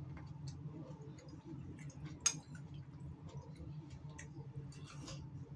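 Close-up eating sounds: chewing and lip smacks heard as scattered small clicks, with one sharper click a little over two seconds in.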